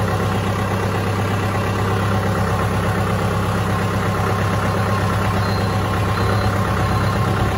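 Kubota M6040SU tractor's 2.4-litre turbocharged diesel engine idling steadily.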